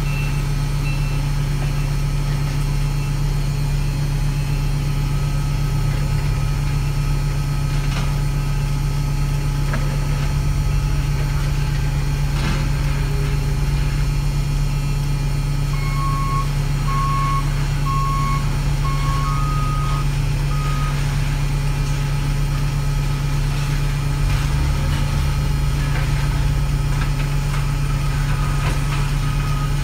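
Heavy truck's diesel engine running steadily, with backup alarms beeping in trains of short even beeps: a higher-pitched one stopping about a second in, and lower-pitched ones from about halfway through and again near the end.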